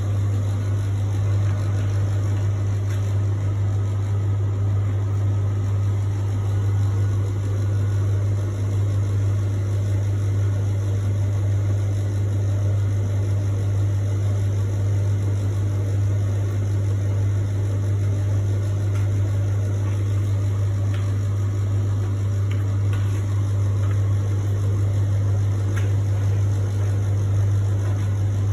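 Beko household appliance running with a steady low hum and a constant rumbling noise above it, unchanging throughout: the strange noise the appliance is making.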